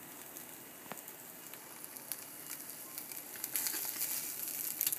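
Slices of liverwurst sizzling in a frying pan over medium heat: a steady hiss with scattered crackling pops. It grows louder about three and a half seconds in.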